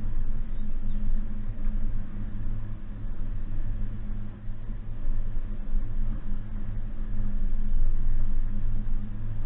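2019 Suzuki Jimny's 1.5-litre four-cylinder petrol engine running steadily while driving off-road, a low hum over road and tyre noise.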